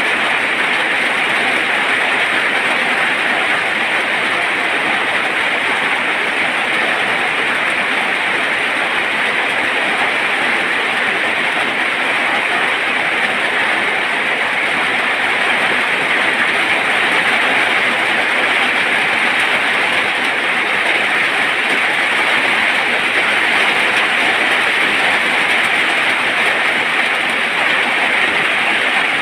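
Heavy rain falling steadily, an even, dense hiss without a break.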